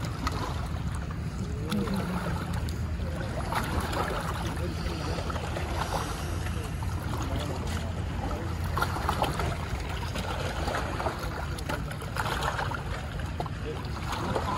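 Steady low hum of a boat engine running, with faint scattered higher sounds over it.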